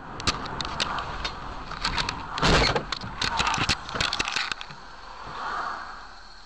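Car cabin and road noise picked up by a dashcam in moving traffic, with a run of sharp clicks and knocks and a loud burst of noise about two and a half seconds in. It then settles to a steady hum.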